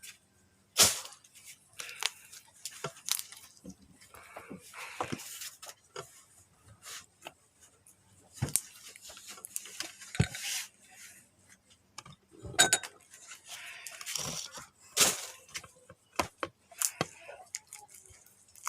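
Irregular clicks, knocks and light clinks of objects being handled, mixed with short rustling noises, with no steady rhythm.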